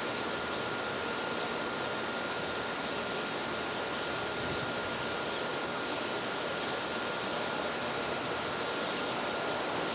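Steady, even rushing background noise with a thin high tone held throughout; no distinct bird calls stand out.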